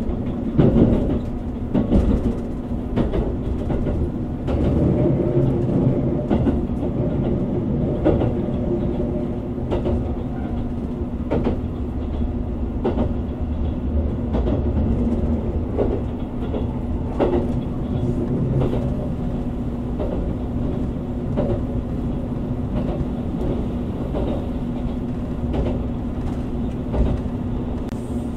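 Running noise inside the cabin of a JR Kyushu 787-series electric limited express train at speed: a steady hum and rumble of wheels on rail, with irregular knocks from the track.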